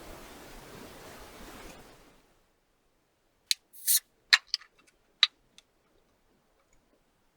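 A steady hiss that cuts off about two seconds in, then near quiet broken by five or six short, sharp clicks and crackles.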